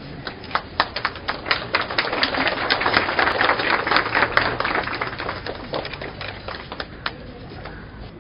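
A small crowd clapping by hand: scattered claps at first, swelling into dense applause a few seconds in, then thinning out to single claps near the end.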